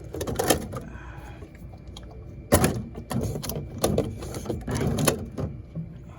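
Plastic Gatorade bottles knocking and rattling as they are set into a mini fridge: a string of clunks, the sharpest about two and a half seconds in.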